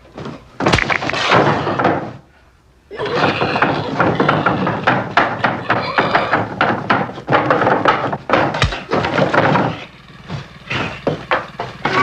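Film sound effects of a violent attack: a heavy blow about a second in, then a long stretch of thrashing, knocking and scraping, and a second heavy impact near the end.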